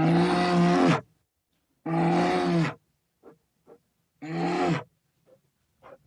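A large wild mammal roaring: three calls of about a second each, holding a steady pitch that drops at the end, with short faint grunts between them.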